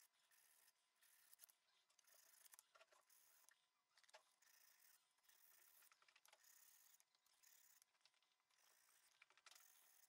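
Faint, scratchy strokes of a small piece of paper being rubbed by hand against a block's edge, repeated with short pauses between them, with a few small ticks.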